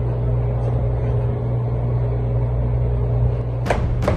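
A steady low hum, with two sharp knocks near the end.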